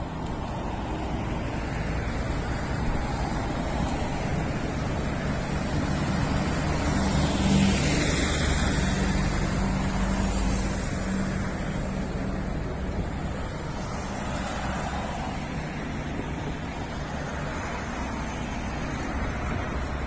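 Road traffic going by close at hand, a steady hiss of tyres with engine hum. It swells as a heavier vehicle passes about seven to eleven seconds in.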